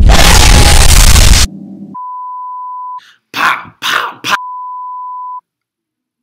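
A loud burst of static-like hiss for about a second and a half, then a steady high-pitched test-tone beep, the tone that goes with colour bars. The beep breaks off about a second in for a few short noisy bursts, then resumes and cuts off suddenly.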